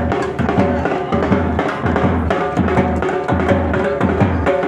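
Music with a steady drum beat, a pulsing bass and held melody tones.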